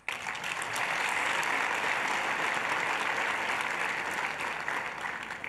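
Audience applauding: a burst of clapping that starts suddenly, holds steady, then tapers off near the end.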